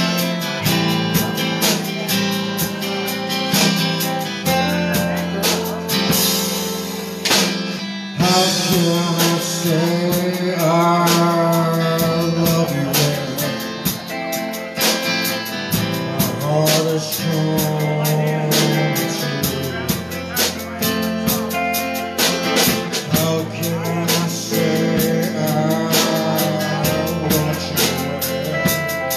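Live blues band playing: guitars, electric bass and drum kit, with a man singing from about eight seconds in.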